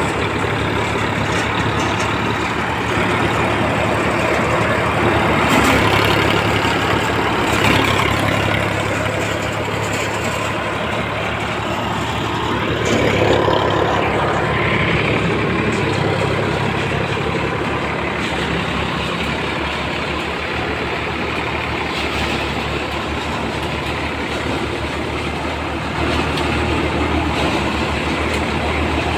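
Sonalika tractor's diesel engine running steadily under load, driving a thresher through its PTO shaft, with the threshing drum running. A continuous low hum under a dense machine noise, swelling a few times and growing louder near the end.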